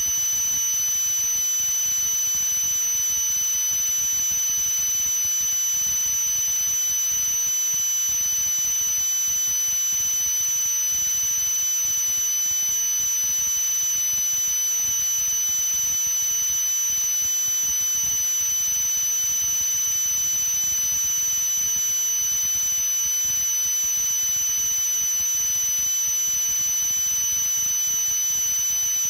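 A steady high-pitched electronic tone over an even hiss, unchanging throughout.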